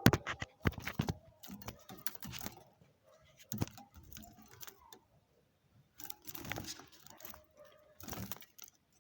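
Irregular metallic rattling and sharp clicks, with rustling, of something being handled, such as a wire cage or trap.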